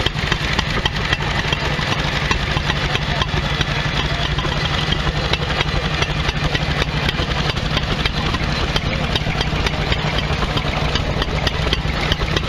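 Antique hit-and-miss stationary engines running, a steady, rapid mechanical clatter with a low engine hum and no break.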